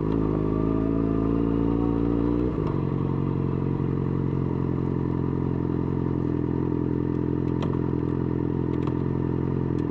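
Yamaha XJ6's 600 cc inline-four engine running, its pitch rising slightly, then dropping about two and a half seconds in and holding steady.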